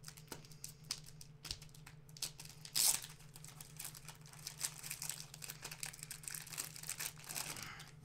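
Cellophane wrapper of a thick trading card pack crinkling and tearing as it is opened by hand, with one louder crackle about three seconds in and steady crinkling through the second half.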